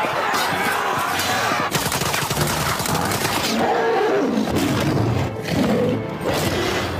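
Dense film battle sound mix: a crowd of people running in panic over a continuous rumble, with a giant wolf's snarl rising out of the mix about halfway through.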